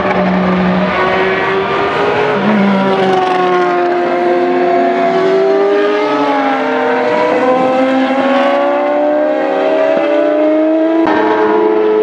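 Single-seater racing car engines at high revs on track, their pitch climbing steadily as they accelerate. About a second before the end the sound changes abruptly to another racing engine.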